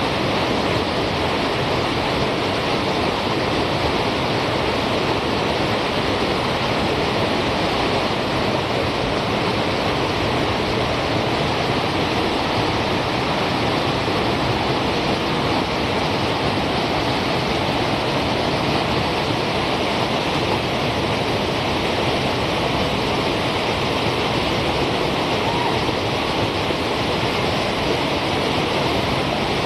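River rapids: whitewater rushing past, a loud, steady wash of water noise that does not change.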